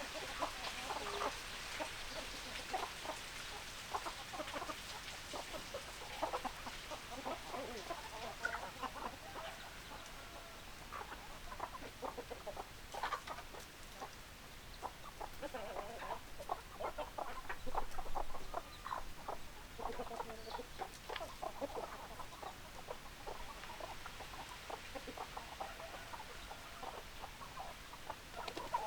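Chickens clucking: a steady stream of short, overlapping clucks from several birds.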